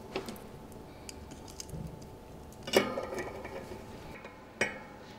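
Small metallic clicks and clinks of a Torx screwdriver working the steel bolts of a bicycle disc brake rotor, with two sharper clinks that ring briefly, the louder one about halfway through and another near the end.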